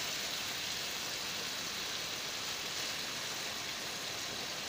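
Beef steaks sizzling steadily in hot oil in a nonstick frying pan.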